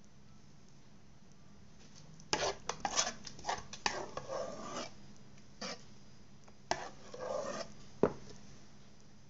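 A spoon scraping and clinking against a glass jar and cookware as apricot jam is spooned into the jar: a run of scrapes and clinks from about two to five seconds in, a few more around seven seconds, and one sharp clink, the loudest, about eight seconds in.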